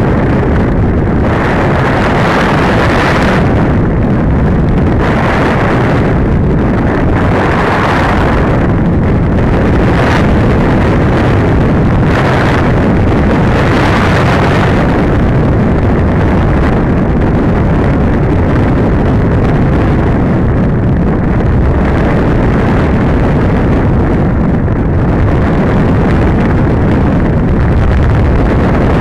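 Loud, steady rush of air buffeting the onboard camera's microphone on an RC glider in flight. Through the first half it swells and eases every second or two, and it turns steadier later on.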